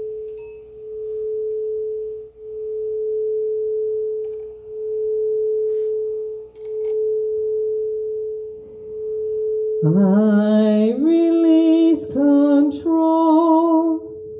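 A sustained pure drone note that swells and fades about every two seconds. About ten seconds in, a woman starts singing the devotional chant over it in long, held phrases.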